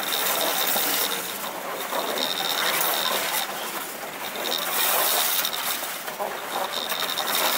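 Loaded grain hopper cars of a freight train rolling past close by: wheels running on the rails with metallic clinking and clanking, and a thin high squeal that comes and goes.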